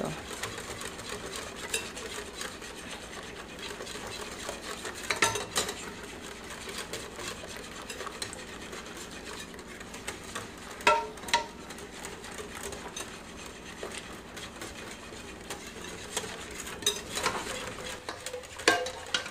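Wire whisk stirring a thin pastry-cream base of eggs, sugar, flour and hot milk in a glass bowl, its wires scraping and ticking against the glass, with a few sharper clinks along the way.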